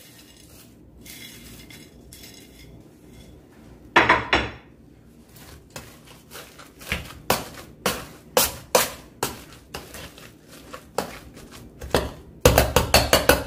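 Potato masher knocking and scraping in a stainless steel pot of soft mashed potatoes and greens: a louder metal clatter about four seconds in, then irregular knocks, then a quick run of clanks, about four a second, near the end.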